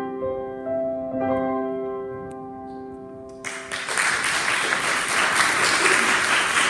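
Closing chords on piano and ukulele ring and slowly fade, then about three and a half seconds in an audience breaks into applause, louder than the music.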